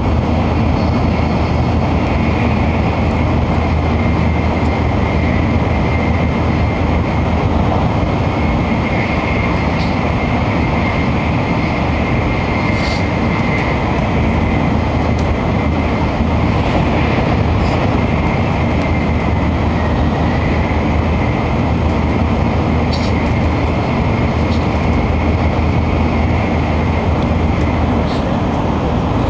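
Cabin noise of a Shinkansen bullet train at speed: a loud, steady rumble with a faint high whine that dips briefly about twenty seconds in, and a few faint ticks.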